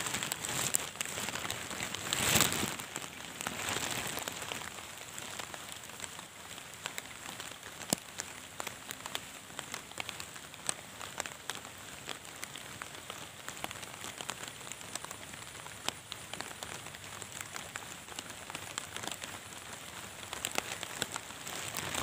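Rain falling steadily onto the water of a narrow ditch and the grassy bank: an even hiss with many small drop ticks. There is a brief louder noise about two seconds in.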